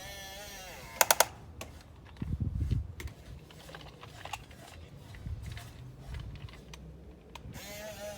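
Small electric gear motor of a toy RC crane: a whine winding down at the start, three sharp clicks about a second in, a low clatter a little later and scattered ticks from the mechanism, then the motor whine starting up again near the end.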